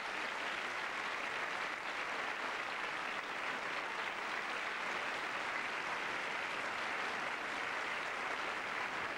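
A theatre audience applauding steadily, dense sustained clapping.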